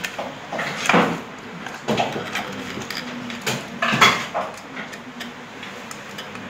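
Plastic switch box, wire and screwdriver being handled as a wire is fitted to the switch terminals: irregular scrapes, knocks and rattles, loudest about a second in and again about four seconds in.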